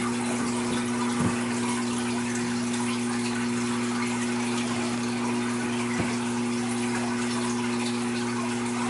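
Water being let out of a large home aquarium, running in a steady rush, with a steady low electric hum underneath.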